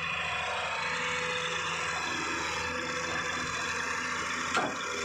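Diesel engine of a Kobelco SK120 excavator running steadily, with a single sharp knock about four and a half seconds in.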